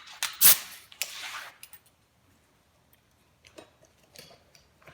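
A loud sharp knock about half a second in, followed by brief rustling and, later, faint clicks and rubs of cabinet parts being handled on the bench.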